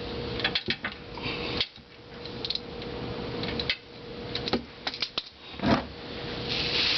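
Scattered clicks and short rustles of a hand in a plastic bag working at a stubborn oil drain plug, over a faint steady hum.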